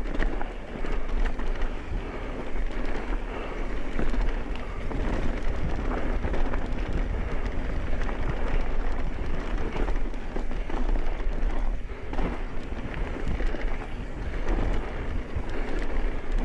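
Mountain bike riding fast down a rough dirt and rock trail: tyres rolling over dirt and loose stones, with the bike clattering over bumps in many short knocks, under steady wind buffeting on the microphone.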